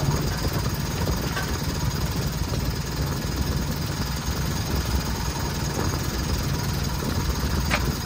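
An engine idling steadily with a fast, even low pulse, and one sharp click shortly before the end.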